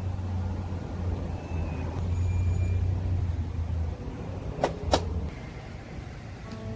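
Low, steady rumble of a motor vehicle running nearby, dying away about four seconds in. Two sharp clicks follow in quick succession, a third of a second apart.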